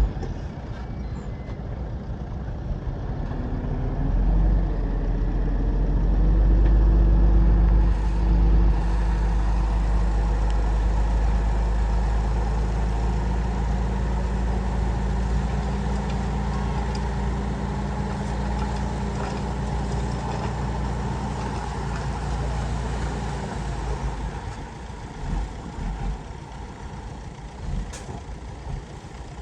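Heavy machine's engine running, growing louder a few seconds in, then gradually easing and dropping off near the end.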